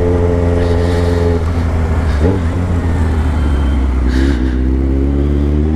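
Yamaha XJ6 inline-four motorcycle engine through an aftermarket sport exhaust, running at a steady speed, easing off after about a second and a half, then rising in pitch as it accelerates from about four seconds in.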